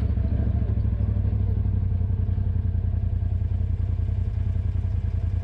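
Polaris RZR side-by-side engine running with a steady low drone, heard from on board while riding a dirt trail.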